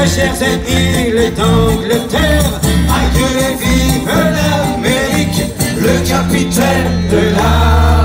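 Live acoustic band music: accordion and acoustic guitar playing under a singing voice, with heavy low notes coming in near the end.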